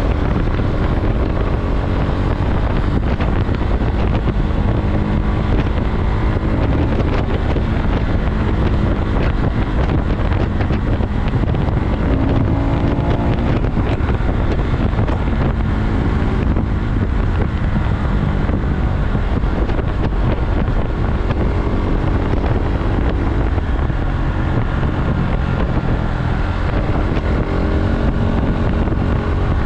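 KTM Duke motorcycle engine running while riding, its pitch rising and falling with the throttle several times, under heavy wind noise on the microphone.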